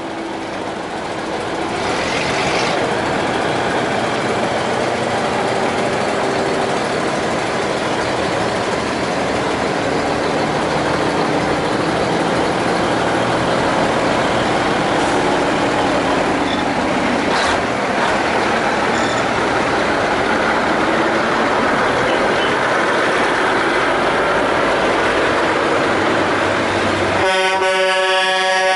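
Vintage Brockway trucks driving past one after another, a steady mix of engine and road noise. Near the end a truck horn sounds in one long blast.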